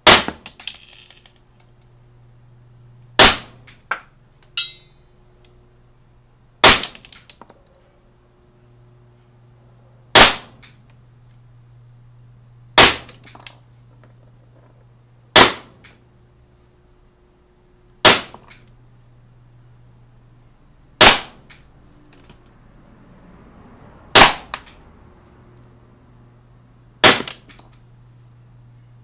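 Cybergun Canik TP9 gas airsoft pistol firing single shots of 0.32 g BBs, ten shots spaced about three seconds apart. Fainter knocks follow some of the shots.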